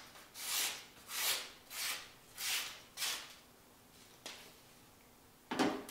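Freshly sharpened ESEE-4 knife slicing through a sheet of paper in about five quick, even strokes, each a short swish, a sharpness test of the new edge. A single click follows about four seconds in.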